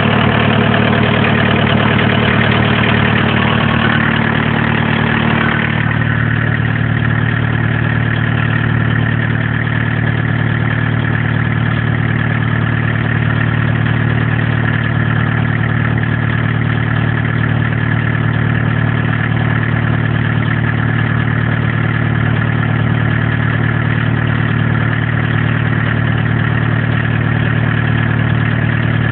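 1981 VW Rabbit's four-cylinder diesel engine running steadily; about six seconds in its sound drops a little and settles into an even idle.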